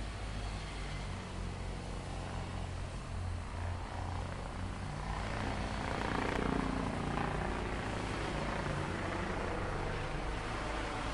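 Large diesel engine of a crawler bulldozer running with a steady low rumble. It swells louder for a few seconds in the middle, then settles.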